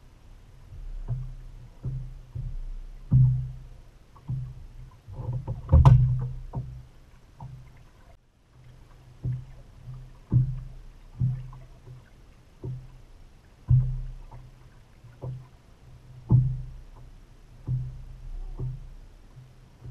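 Small waves slapping against a bass boat's hull as it rocks on the chop: irregular low thumps about once a second, the loudest and sharpest about six seconds in.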